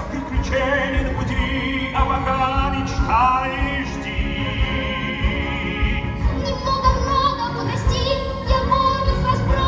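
A song from a stage musical: a solo voice sings long, sustained notes with vibrato over full orchestral backing.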